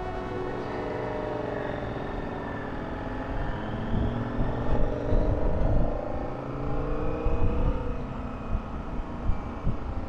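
Motorcycle engine running under way, its pitch rising and falling as the throttle changes, with wind buffeting the microphone.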